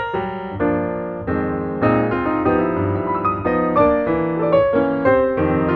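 Background piano music playing slow, held chords.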